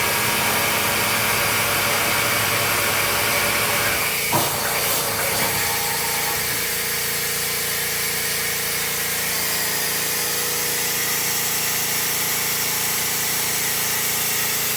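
Compressed air hissing steadily from a leak on a Hofer pneumatic case clamp as it cycles, over a steady machine hum, with a single clunk about four seconds in.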